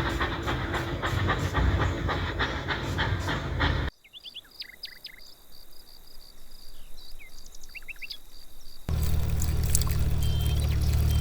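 A small machine clattering, stopping abruptly about four seconds in; a quiet stretch with short high chirps follows, then a small motor starts a steady low hum near the end.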